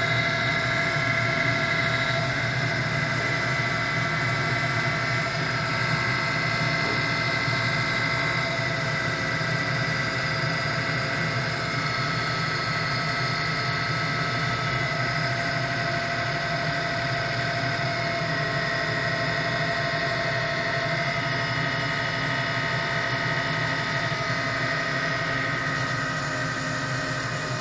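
CNC wheel lathe running, spinning an alloy wheel for diamond cutting, with a steady mechanical whine of several held tones over a constant hum.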